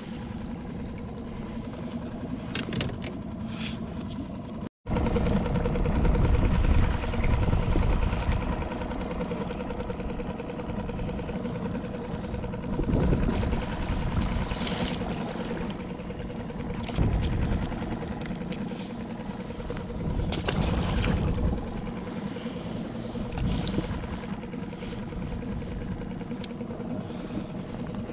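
Small boat's outboard motor idling in neutral: a steady low running hum with wind and water noise on the microphone. The sound cuts out completely for a moment about five seconds in.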